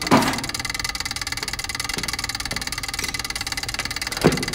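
Steady low throbbing drone with a fast, even pulse, from the film's background sound design. A short, sharp, loud sound comes just after the start, and another about four seconds in.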